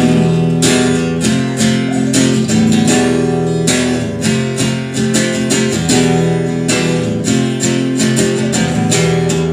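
Acoustic guitar strummed in a fast, even rhythm, about three strums a second, with no singing: an instrumental break between verses of the song.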